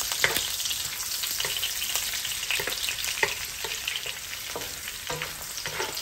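Chicken innards sizzling and crackling in hot oil as they are stir-fried, with a cooking utensil scraping and knocking against the pan at irregular moments.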